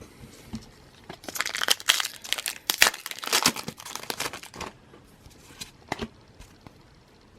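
Foil Pokémon booster pack wrapper being torn open and crinkled: a dense stretch of crackling starting about a second in and lasting some three and a half seconds, followed by a few light clicks.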